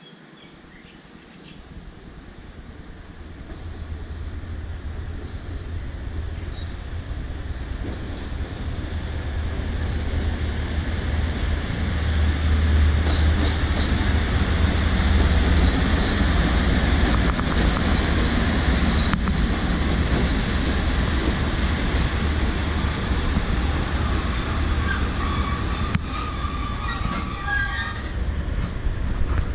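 Freight train hauled by a PKP Cargo ET22 electric locomotive, rumbling louder as it approaches and then rolling steadily past as its flat wagons go by. A high wheel squeal rings out about halfway through, and more squeals come near the end.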